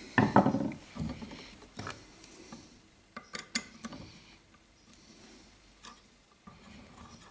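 Small metal handling noises from adjusting the eccentric on a model engine's crankshaft: a hex key in the set screw and fingers on the eccentric and flywheel, giving scattered sharp clicks and taps. A louder handling noise comes in the first half second, and a quick run of clicks around the middle.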